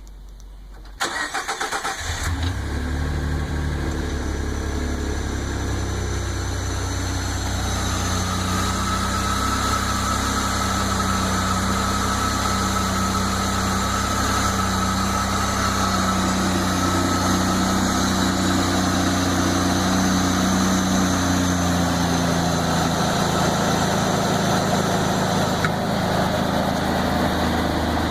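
Ford EcoBoost engine cranking briefly and starting, then idling with an unidentified high-pitched whine over the engine note. Near the end a click is heard and the whine stops; the owner has ruled out the belt tensioner as its cause.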